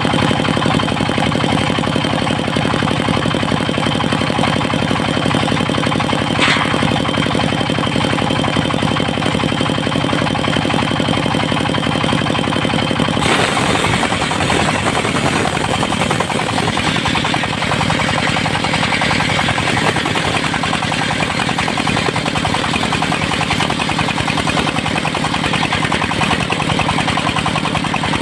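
Engine of a mobile circular sawmill running steadily with a rapid knocking beat. About halfway through the sound turns rougher and noisier, filling the higher pitches.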